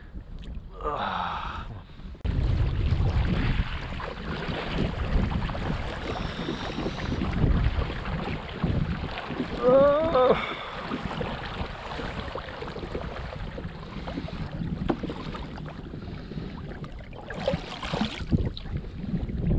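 Wind buffeting the microphone over water lapping at a kayak's hull. A short wavering pitched sound comes about halfway through.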